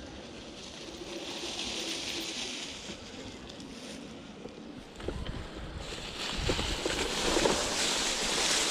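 Riding noise of an e-mountain bike on a dirt trail: wind rushing over the microphone and tyres rolling, growing louder about five seconds in, with a few knocks as the bike hits bumps.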